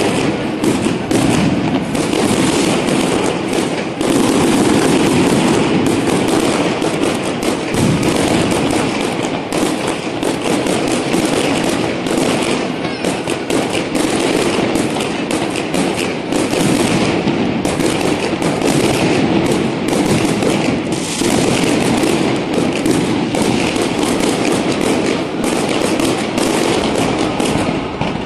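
Aerial fireworks and firecrackers going off in a continuous barrage: a dense, unbroken crackle of many rapid bangs overlapping one another, with no let-up.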